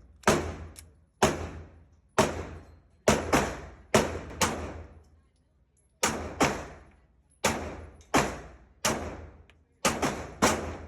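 Glock 43X 9mm pistol firing a string of about fifteen shots in quick, uneven succession, with a pause of about a second and a half near the middle. Each report trails off in a short echo.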